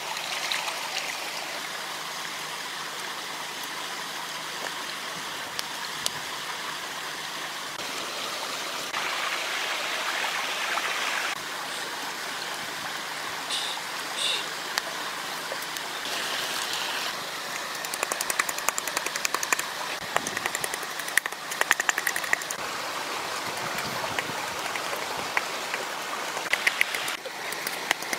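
Shallow stream running steadily over rocks. In the last third, a run of sharp clicks and taps sits on top of the water sound.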